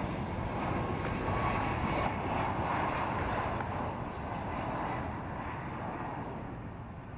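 Boeing 767 freighter's jet engines running as it passes low on final approach: a steady rushing noise that slowly fades near the end.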